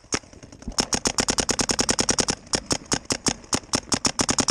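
Paintball marker firing rapid strings of shots, about ten a second. The shooting starts about a second in and stops twice briefly.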